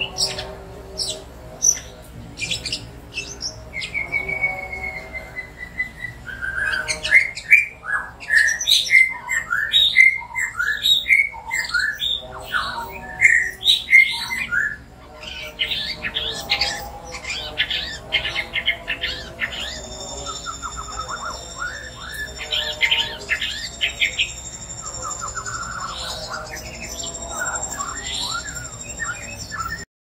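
A caged white-rumped shama, wet after being doused with water, singing a loud, varied song of whistles and chirps, with a long falling whistle about four seconds in and a fast string of notes in the middle.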